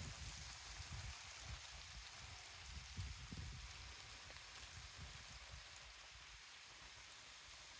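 Quaking aspen leaves fluttering in a breeze, a faint, even rustle, with low wind rumble on the microphone now and then.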